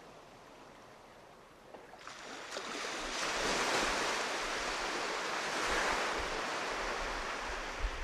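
Sea waves washing, a steady surf noise that swells in about two seconds in.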